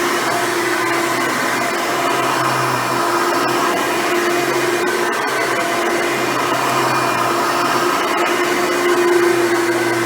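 Hoover Runabout vacuum cleaner running steadily at full power, its motor hum swelling and fading a little every couple of seconds as it is worked over the floor.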